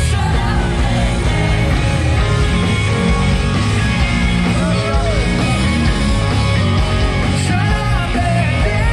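Soul band playing a dance number with a singer over a steady bass line.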